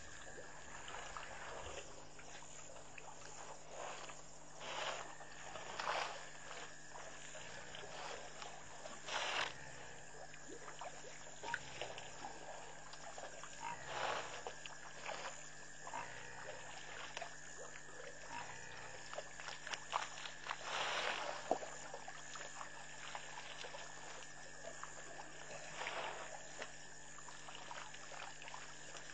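Night ambience at a waterhole: a steady chorus of insects and frogs, broken every few seconds by short, louder noisy sounds.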